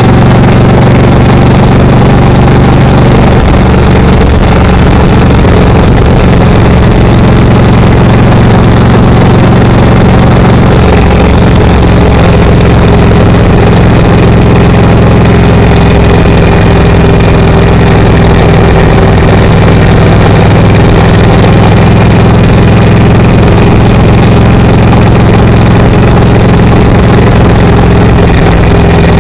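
Car engine running steadily while driving, over constant road noise. The engine note shifts slightly about three seconds in and again around eleven seconds in.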